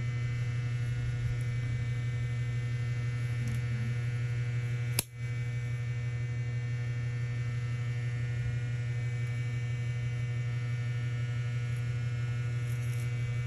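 Steady low electrical hum with a stack of faint steady tones above it, interrupted by a single sharp click about five seconds in.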